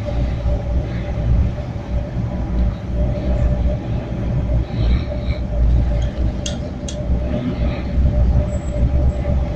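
Steady rumble and running noise inside a moving train carriage, with a constant mid-pitched hum running through it. Two sharp clicks come close together about two-thirds of the way through.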